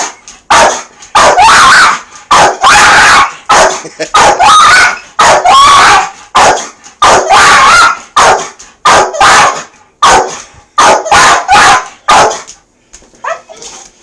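A dog barking loudly and repeatedly, about two barks a second, some rising or falling in pitch, a little sparser and quieter near the end. The dog is barking at a smoke detector being set off as a test.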